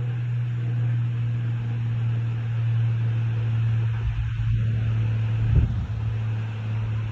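Steady low mechanical hum, like a fan or appliance motor. From about four seconds in it is joined by irregular low rumbling gusts of noise.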